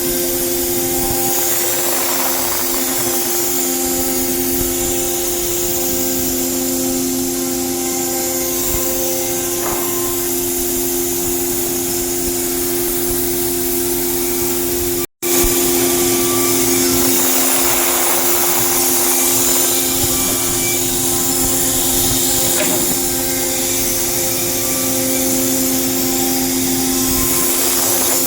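CNC router spindle running steadily as it cuts wood: a constant whine with a hiss of cutting over it. It breaks off for an instant about halfway.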